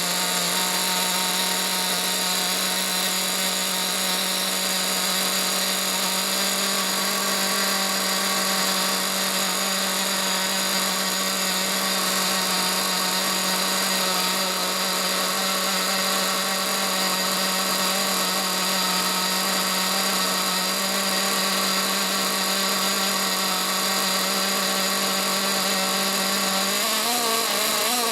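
RB K10 nitro engine of an Ofna Dominator RC truck running at a steady speed with one constant pitch, which wavers and rises near the end.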